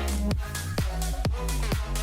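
Electronic dance music with a steady four-on-the-floor beat, about two beats a second, over a heavy bass line and sustained synth chords.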